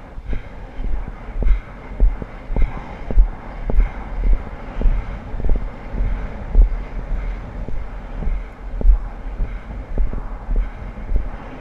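A polo pony moving at speed on grass turf, a hoof thud and jolt with each stride a little under twice a second, under a steady rumble of wind on the microphone.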